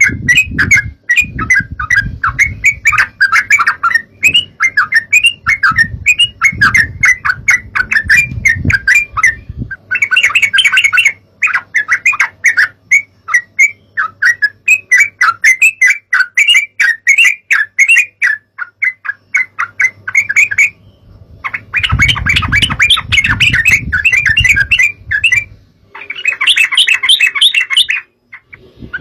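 Yellow-vented bulbul (trucukan) singing fast, chattering phrases almost without pause, breaking off briefly a few times.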